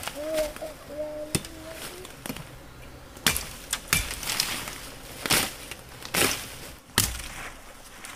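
Dry cassava stalks cracking sharply as they are chopped with a machete: about half a dozen hard, irregularly spaced cracks.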